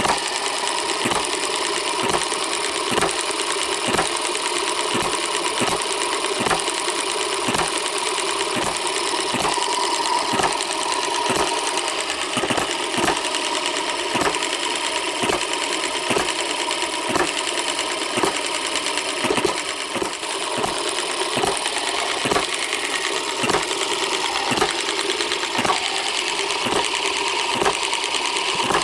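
Microcosm M90 model hit-and-miss engine running, its governor fitted with two softer springs: a steady light mechanical clatter from the flywheels and valve gear, with a sharp pop from the cylinder a little more than once a second.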